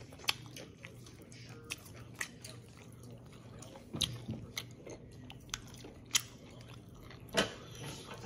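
A person chewing grilled Korean short rib (galbi) close to the microphone: short wet mouth clicks and smacks every second or so over a low steady hum.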